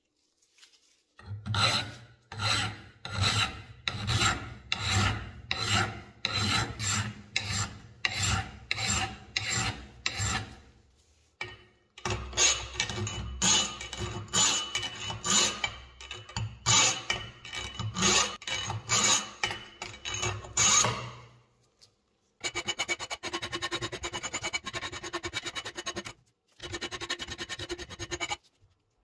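Rhythmic rasping strokes of a hand tool worked back and forth, about two a second, pausing briefly partway through. Near the end they give way to a faster, denser run of short strokes.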